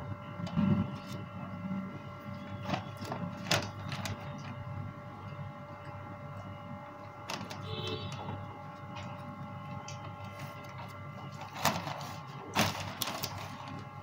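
Steady hum of a running appliance, made of several fixed tones. Occasional handling clicks and rustles break in: a few in the first seconds and a louder cluster near the end.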